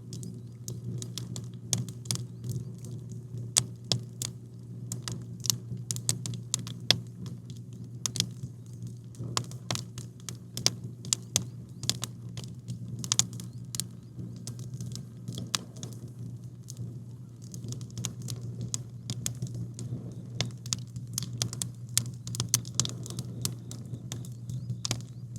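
Campfire crackling, with wood snapping and popping in quick irregular clicks over a steady low hum.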